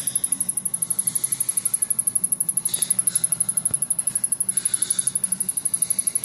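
Samsung rear projection CRT television's power circuit ticking rapidly and evenly, about ten high-pitched ticks a second, while it fails to fire up fully; the owner takes it for something shorting out inside, not blowing the fuses.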